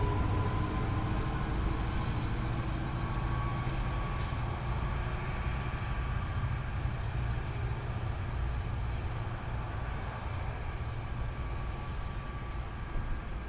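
NJ Transit commuter train running along the tracks: a steady low rumble that slowly fades, with a thin steady whine above it.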